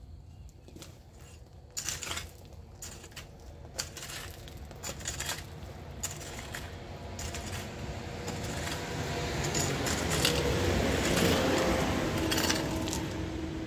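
Long-handled hoe scraping through gravel and sand, with irregular sharp clinks of the blade striking stones. A rushing scrape builds up and is loudest a few seconds before the end.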